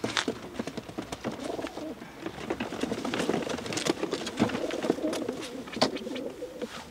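Racing pigeons cooing in the loft, with repeated sharp knocks and clatter from a wooden crate being handled; the loudest knock comes near the end.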